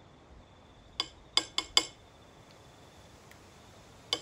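Metal teaspoon clinking against a small sauce pot and plate while scooping and dotting sauce: four quick clinks about a second in, and one more near the end.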